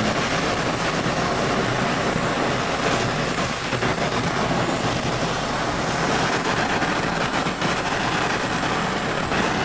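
Handheld gas torch on a butane canister burning with a steady hiss as its flame singes a plucked duck.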